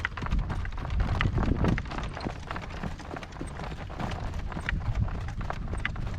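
A ridden horse's hoofbeats striking the ground in an irregular run of strikes, with gusty wind rumbling on the microphone.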